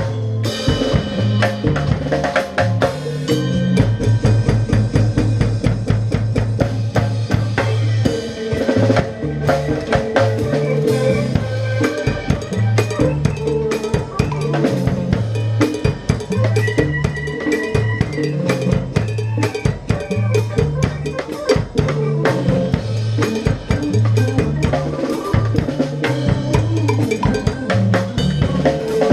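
Music with a drum kit playing a busy beat of snare, rimshots and bass drum over a repeating bass line.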